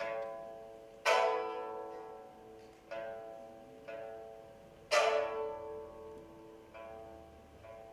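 A pipa quartet playing slow, spaced plucked chords that ring and fade: two strong chords about a second in and again near five seconds, with lighter plucks between.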